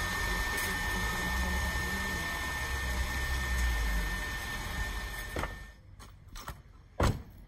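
Diesel engine of a MAN vacuum tanker truck running close by, a low steady rumble with a thin steady high whine over it. It cuts off suddenly about six seconds in, leaving quieter outdoor sound with a few short knocks, the loudest about seven seconds in.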